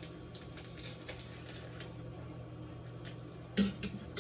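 Light kitchen handling noises, small clicks and taps of utensils and dishes, over a steady low hum. A louder short knock or clatter comes near the end.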